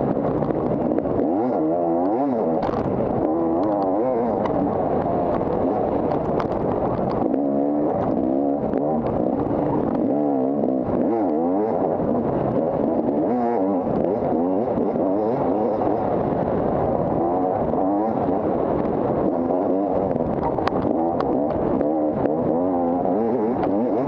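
250-class off-road dirt bike engine under hard riding, its pitch rising and falling over and over as the throttle is worked and gears change, with scattered clicks and knocks.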